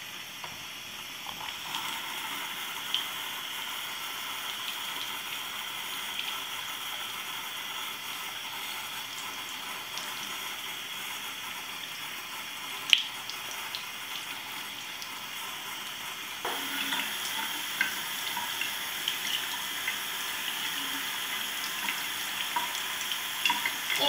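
Bathroom sink faucet running steadily, its stream splashing into the basin and over hands being rinsed. The splashing grows a little louder about two-thirds of the way through, and there is one sharp click a little past the middle.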